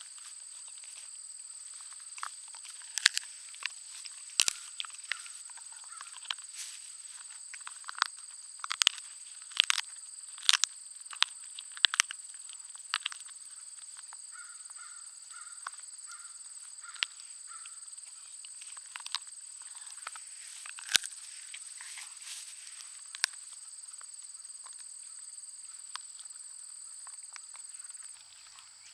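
A Schnauzer-pug mix dog gnawing on a bone: irregular sharp crunches and cracks, sparser in the last few seconds.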